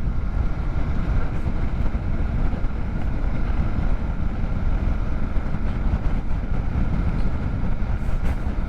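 Steady wind noise and road rumble on a helmet- or bike-mounted microphone while riding a motorcycle at speed, with no clear engine note standing out.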